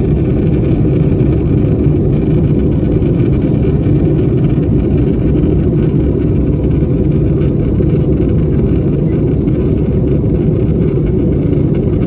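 Airbus A321 cabin noise during descent: a steady, loud low rumble of the jet's airflow and engines heard from a window seat, unchanging throughout.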